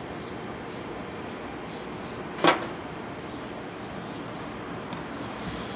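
A single sharp metal clank with a short ring, about halfway through, over a steady background hiss.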